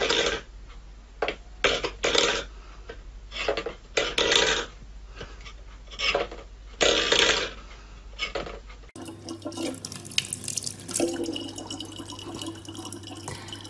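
A cat paws a stainless steel bowl on a wooden floor, and the bowl scrapes and clatters in repeated short bursts. After a cut about nine seconds in, a thin tap runs water steadily into a plastic bottle, with a low steady hum underneath.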